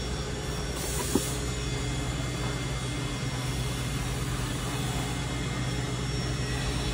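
Steady hum and hiss of workshop machinery running, with one short click about a second in.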